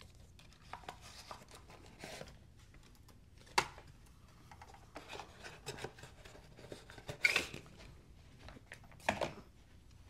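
Faint rustling and small clicks of packaging being handled and put back into a box, with a sharp click about three and a half seconds in and louder rustles near seven and nine seconds in.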